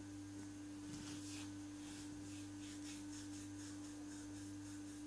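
Quiet room tone: a faint steady hum with soft, irregular rubbing and handling noises.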